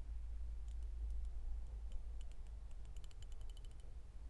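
Tekton swivel-head hand ratchet's pawl clicking in short, quick runs as it is worked back and forth, a fine-tooth ratchet. A steady low hum lies underneath.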